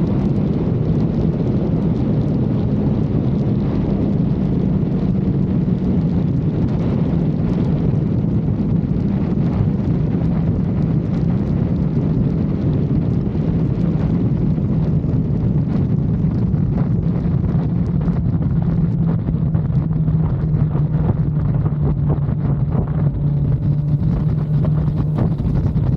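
Kawasaki Z900's inline-four engine running at a steady pace on the move, its note easing slightly lower over the second half, with heavy wind noise on the microphone.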